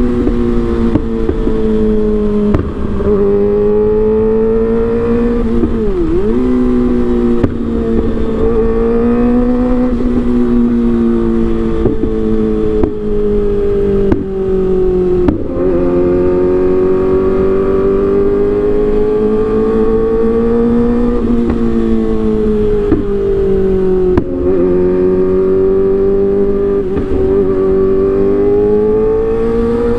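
Kawasaki ZX-25R's 250 cc inline-four running hard at high revs through an Arrow aftermarket exhaust, its pitch slowly rising and falling. Several times the pitch dips sharply for a moment and climbs back, and a few sharp pops are heard.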